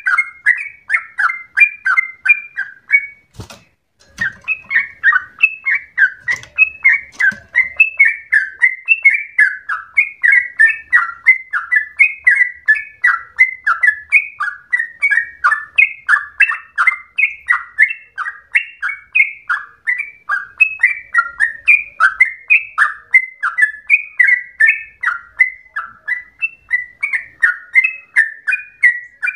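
Yellow-vented bulbul (trucukan) singing a long, rapid run of short chattering notes, several a second without pause. The song breaks off briefly about three and a half seconds in, with a single sharp click, then resumes.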